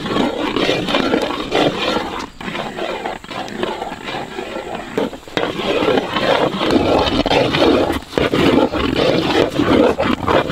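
A long metal ladle stirring thick semolina-and-jackfruit kesari in a large metal pot: steady scraping against the pot and squelching of the dense, sugary mass as it thickens while it cooks.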